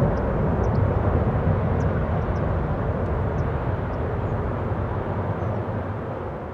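Four D-30KP turbofan engines of an Ilyushin Il-78 tanker aircraft running in flight: a deep, steady rumble of jet noise that slowly fades as the aircraft banks away.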